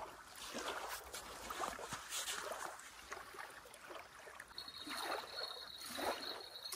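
Small waves lapping and washing onto a sandy lake shore in irregular soft splashes. A thin steady high tone joins about two-thirds of the way in.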